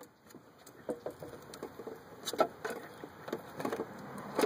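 Irregular light clicks and knocks from handling plastic taillight parts on the car, a few scattered taps at first, then closer together in the second half.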